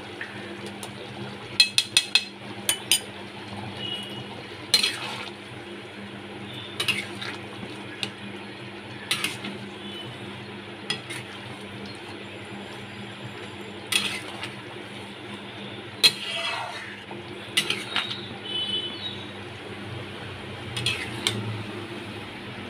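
Metal spoon stirring a thick curry in a wide metal pan, clinking and scraping against the pan at irregular intervals, with a quick cluster of clinks about two seconds in.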